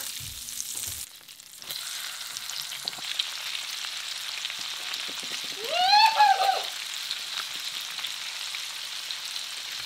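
Perch fillets frying in butter in a stainless steel skillet, a steady sizzling hiss. About six seconds in, a short high-pitched sound rises and falls in pitch over the sizzle.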